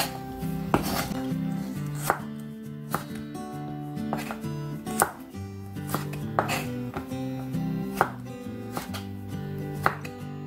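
Kitchen knife cutting burdock root into strips on a wooden cutting board: sharp knocks of the blade on the board, irregularly spaced about once a second, over background music.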